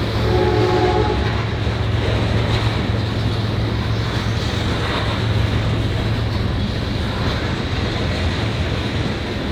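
Loaded coal train on the move: EMD SD70ACe diesel locomotives running with a steady low drone over the rumble of the cars. A short horn sounds in the first second or so.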